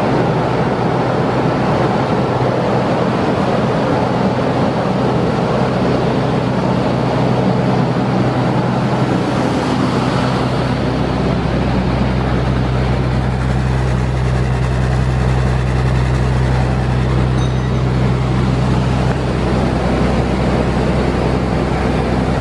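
Bus engine running steadily through a newly built exhaust that exits under the floor beside a rear wheel, a constant low engine note with no revving. From about ten seconds in the low note is heavier, heard close to the tailpipe.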